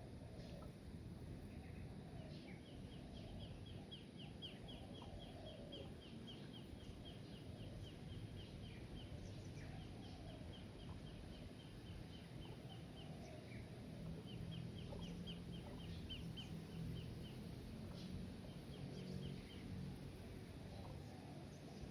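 Faint outdoor bird ambience: a fast, high chirping trill repeated in runs of a few seconds, over softer, lower calls, with a faint low hum in the second half.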